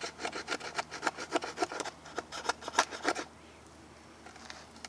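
Small multi-tool axe blade shaving a piece of wood into curls for fire-starting: quick scraping strokes, about four a second, stopping about three seconds in.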